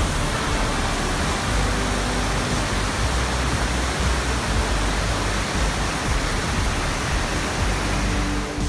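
Steady rushing roar of a mountain waterfall cascading down a rock face into a boulder-filled creek.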